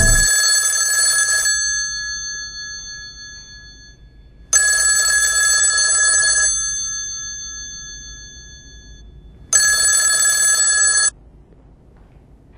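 Telephone ringing with an old-style bell ring, three rings about five seconds apart. Each ring lasts about two seconds; the first two fade out slowly after they stop, and the third cuts off short.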